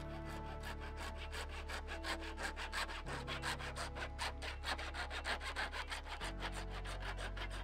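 Fine-toothed handsaw cutting through a plastic downpipe in quick, even back-and-forth strokes, several a second.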